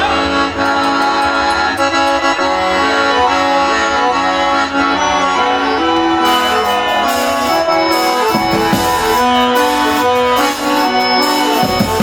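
Accordion (sanfona) playing the instrumental introduction of a forró song, a melody of sustained notes moving in steps.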